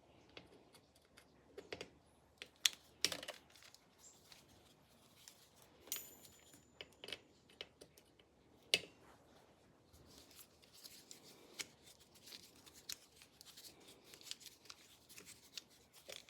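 Light metallic clicks, taps and scrapes of a hand tool and small screws being worked and handled while the Torx screws holding a bicycle disc brake rotor to its hub are undone, with a denser run of small ticks in the second half.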